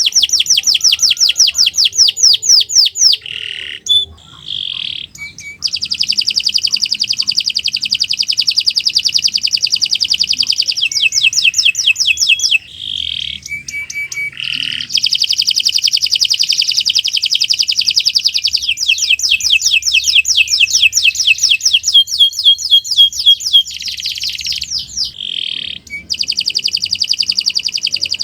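Domestic canary singing a long, loud song of rapid rolling trills, each a fast run of repeated high notes, broken now and then by brief pauses and short single calls.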